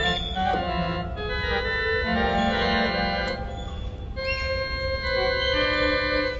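An electronic keyboard synthesizer sustains clusters of notes pressed by an otter, the notes changing every second or two.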